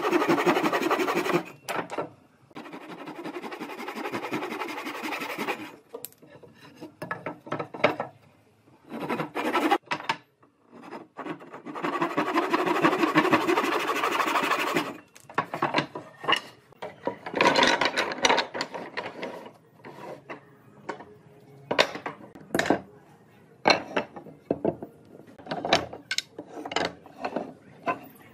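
Wood being worked by a tool in several sustained bursts of a few seconds each, then a run of sharp knocks and clicks of wooden pieces being handled.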